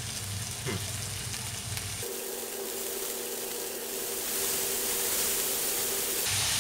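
Bacon sizzling and popping in a frying pan: a steady crackling hiss that grows louder about four seconds in.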